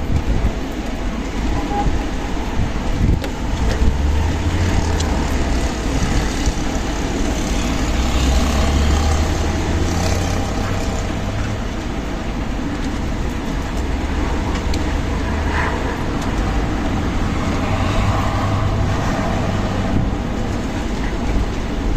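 Strong desert wind blowing in gusts and buffeting the microphone with a deep rumble.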